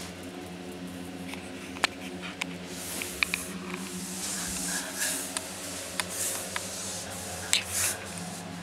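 Soft rustling and scattered light clicks and scratches of young chihuahua puppies moving about, over a steady low hum.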